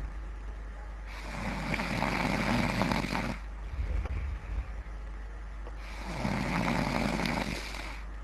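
A person snoring heavily: two long noisy breaths, each about two seconds, with a short deep rumble between them, repeating every four to five seconds.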